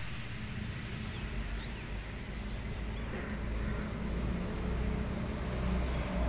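Steady low outdoor rumble.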